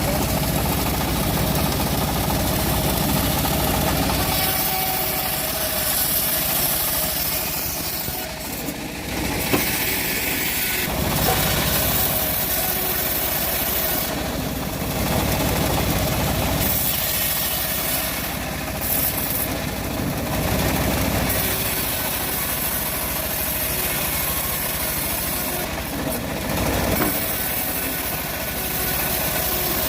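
Homemade bandsaw sawmill running as it cuts teak. Its motor's low hum grows stronger and weaker every few seconds over a steady high hiss.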